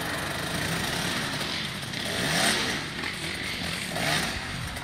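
Dirt bike engine revving up and down, with two louder rev bursts about two and a half and four seconds in. The throttle cable is broken, so the engine is revved by pulling the cable with the rider's teeth.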